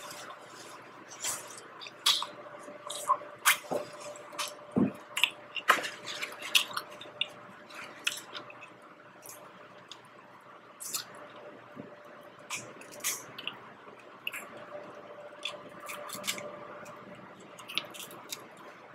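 Close-up eating of king crab legs: wet chewing and squishing with many short sharp clicks and smacks as the meat is eaten and picked from the shell by hand and with a fork.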